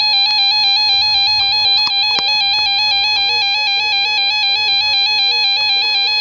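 Emergency Alert System attention tone announcing a severe thunderstorm warning: a loud, continuous electronic alarm tone with a fast flutter, and a couple of faint clicks about two seconds in.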